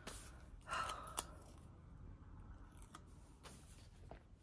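Scissors snipping washi tape: a few faint rustles and snips, the clearest about a second in.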